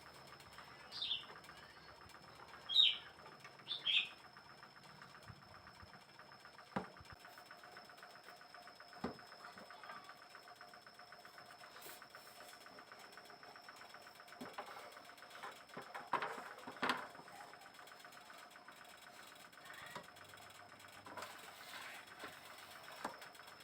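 A small bird giving three short, high, falling chirps in the first four seconds, followed by a few faint scattered knocks and rustles.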